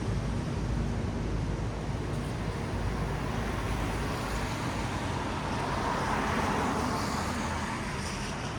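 Traffic on a wet road: a steady low rumble of vehicles with a car's tyres hissing on the wet asphalt as it passes, loudest about six to seven seconds in, then fading.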